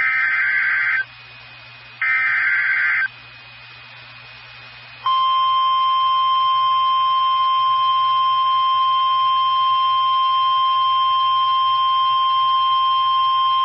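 NOAA Weather Radio emergency alert: two harsh, raspy digital data bursts of about a second each, a second apart (the end of the SAME header that encodes the alert), then about two seconds of quiet and the steady 1050 Hz warning alarm tone. This sequence signals a new warning about to be read.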